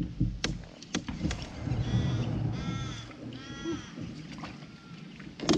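A crow cawing three times in quick succession, long drawn-out calls. Sharp knocks and clunks from a plastic kayak and its gear sound around it, with a loud knock near the end.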